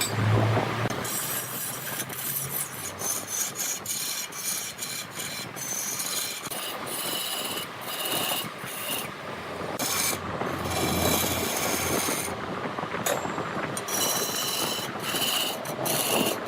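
Turning tool scraping and cutting into a redwood log spinning on a large wood lathe: a rough rasping noise that comes and goes in uneven strokes, with a low motor hum near the start.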